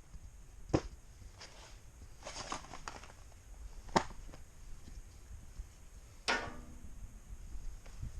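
A few sharp knocks and clicks: one about a second in, a louder one about four seconds in, and a heavier knock with a short ringing tail about six seconds in, with some rustling between.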